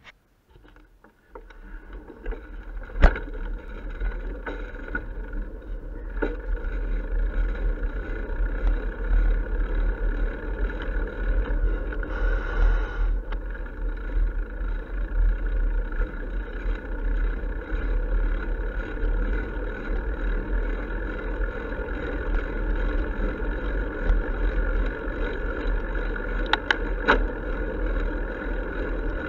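Wind buffeting and road rumble picked up by a bicycle-mounted camera as the bike sets off about a second and a half in and rides along a street. A few sharp knocks come through, the loudest about three seconds in.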